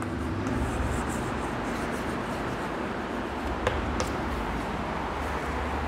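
Chalk writing on a blackboard: soft scratching of chalk strokes with a couple of light taps about two-thirds of the way in, over a steady low room hum.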